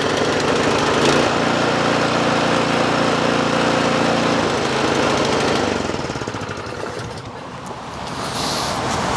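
Cub Cadet snowblower engine started on choke and running, then breaking up and dying away about five seconds in, the run-and-die fault the owner is chasing.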